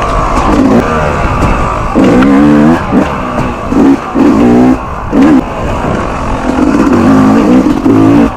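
Yamaha YZ250X two-stroke dirt bike engine revving in repeated short bursts, its pitch rising each time the throttle opens and dropping away between pulls.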